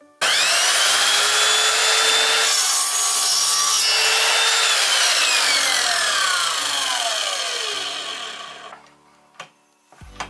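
Parkside PKS 1500 A2 mitre saw motor switched on, its whine rising quickly to full speed. The blade cuts through a piece of wood, then the motor is released and spins down with a long falling whine, stopping about nine seconds in.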